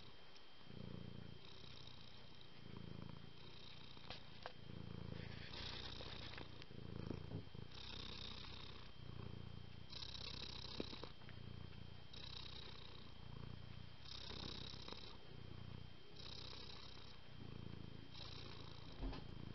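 Domestic tabby cat purring steadily while dozing, close to the microphone. A low rumble alternates evenly with a higher, breathier phase as it breathes in and out, one breath cycle about every two seconds.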